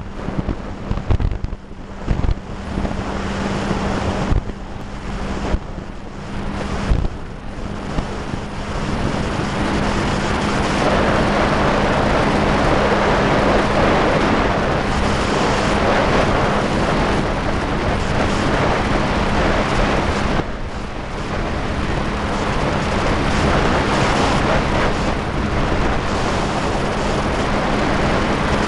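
Wind buffeting the microphone of a motorboat under way, over the steady hum of its engine. The wind comes in uneven gusts at first, then settles into a steadier, louder rush after about eight seconds.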